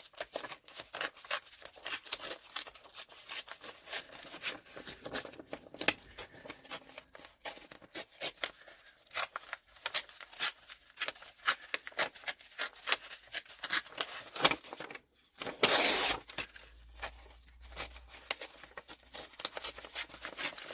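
Green card being torn by hand in many short rips around a glued-on paper panel, leaving a rough border. Irregular crackling tears, with one longer, louder rip about sixteen seconds in.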